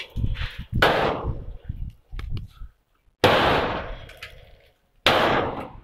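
Three loud crashing bangs about two seconds apart, each dying away over a second or so: metal and debris being knocked down as a steel-framed roof is demolished.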